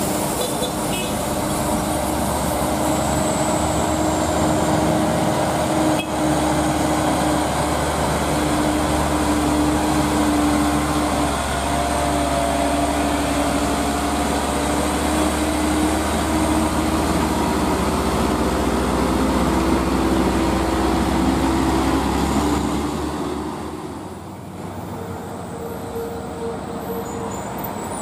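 Diesel engine of a loaded Mitsubishi Fuso Canter dump truck pulling hard uphill, a steady drone with a low rumble as it passes. About 24 seconds in it drops away to the quieter sound of another approaching vehicle.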